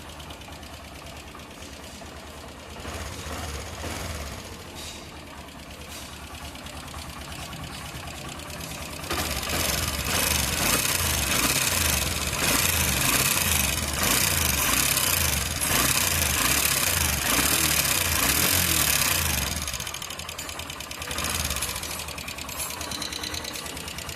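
Honda Livo's single-cylinder engine running with a rapid, sewing-machine-like ticking from the valve rockers: the rocker noise problem. The engine gets louder between about nine and twenty seconds in.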